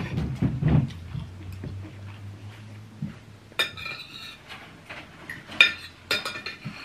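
Metal fork and spoon clinking and scraping on a ceramic plate while eating, with several sharp clinks: one at the start, a cluster about three and a half seconds in, and more near the end.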